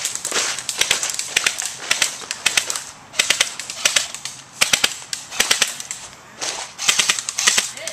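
Crosman Pulse R76 electric airsoft rifle firing in short strings of rapid sharp clicks, about eight strings with brief pauses between them.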